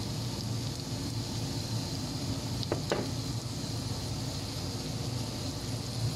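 Sliced carrots, onions and peppers sizzling in a frying pan as sweet soy sauce is poured over them, over a steady low hum. Two quick light knocks come just before three seconds in.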